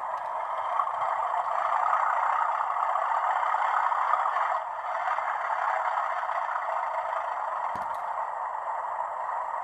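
Diesel engine sound from the Hornby Class 37 model locomotive's TTS sound chip, playing through its small onboard speaker as the loco runs: a steady, thin mid-pitched drone that swells a little a second or so in. A single short click comes near the end.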